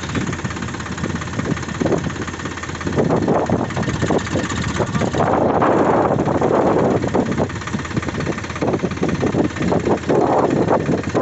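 Sonalika DI 42 tractor's diesel engine running at idle, swelling louder a few times.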